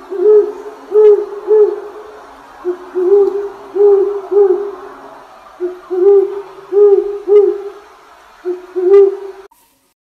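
Owl hooting: a series of short, low hoots, mostly in twos and threes, over a faint background hiss.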